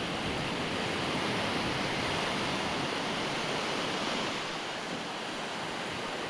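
Sea surf washing onto a beach, a steady rushing noise that is a little louder in the middle and eases after about four seconds.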